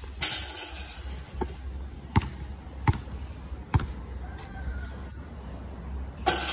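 Basketball bouncing on a concrete court: single sharp bounces, a few of them under a second apart, with a brief noisy clatter just after the start and again near the end.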